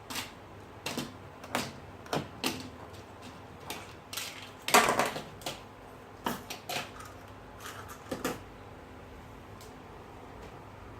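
Small tools and phone parts clicking and tapping irregularly during a smartphone display repair. The loudest cluster comes about halfway through, and the clicking stops about eight seconds in.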